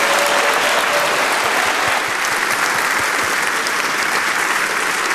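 Audience applauding: steady clapping that eases slightly after about two seconds.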